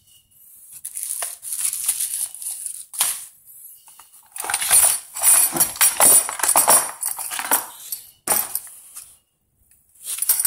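Handling noise as a jigsaw is lifted out of its hard plastic carrying case: irregular rustling, scraping and plastic clatter, busiest in the middle, with one sharp knock about eight seconds in. The saw's motor is not running.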